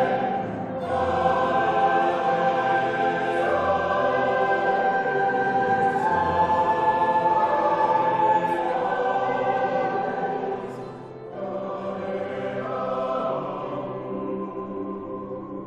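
Mixed choir of men and women singing in sustained chords, with a brief break about half a second in and another near eleven seconds, after which the singing is softer.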